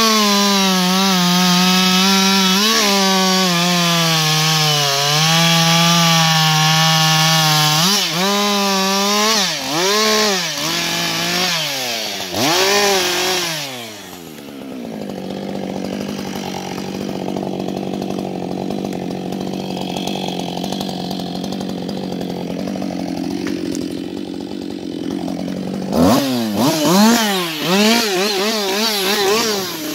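Husqvarna 560 XP two-stroke chainsaw at full throttle cutting through a log, bogging slightly under load for about eight seconds, then revved up and down several times as the cut finishes. About fourteen seconds in it drops to a steady idle, and near the end it is blipped up and down repeatedly.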